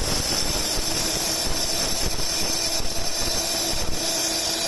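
Small high-speed domestic flour grinder switched on, its motor and blades grinding wheat grains into flour with a loud, steady whirring noise and a steady hum beneath it. It starts abruptly at full speed.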